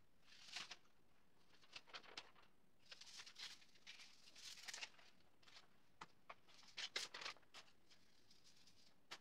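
Faint rustling and crinkling of an artificial Christmas tree's plastic branches and ornaments as they are handled and taken off, with a few light clicks, busiest about seven seconds in.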